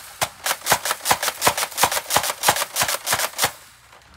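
Nerf Rival Hades blaster being worked by hand, making a quick, even run of hard plastic clacks about four a second that stops about three and a half seconds in.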